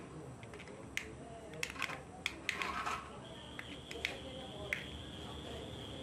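Miniature remote-control toy car in use: a series of sharp plastic clicks, with a steady high-pitched whine coming in about three seconds in.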